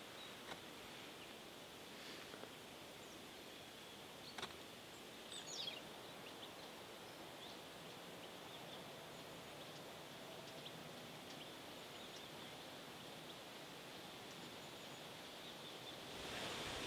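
Quiet countryside ambience: a faint steady hiss with a thin high tone, a few soft clicks, and brief faint bird chirps about five seconds in. The sound grows a little louder near the end.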